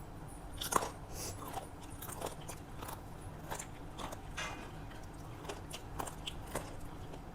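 Close-up chewing and biting of rice and crisp fried vegetables, with irregular crunches and wet mouth clicks about every half second.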